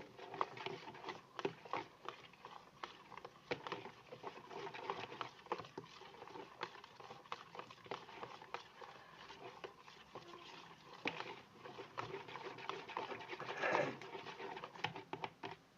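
A spoon stirring clear glue and borax water in a plastic container as slime forms, making many small irregular clicks and scrapes, with a louder stroke near the end.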